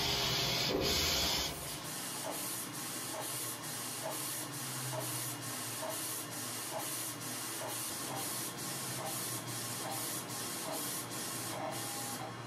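UV flatbed printer running while it prints onto golf balls in a tray: louder and hissier for the first second and a half, then a steady mechanical whir with a short blip repeating about every half second.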